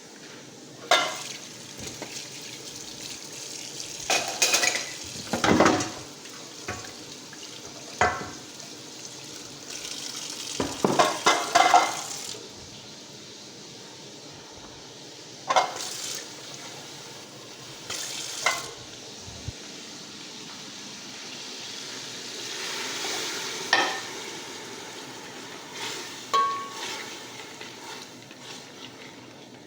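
A spoon stirring pumpkin curry in a metal cooking pot as water goes in, with about a dozen sharp clinks of spoon against pot scattered through, over a steady sizzle. A louder hiss swells for a couple of seconds late on.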